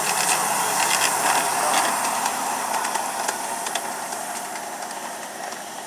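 Ride-on miniature railway locomotive pulling a riding car past and away along the track: a steady hiss that fades as it moves off, with a few light clicks.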